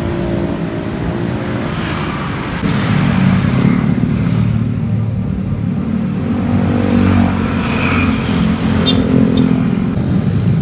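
Several motor scooters riding past one after another, their small engines running.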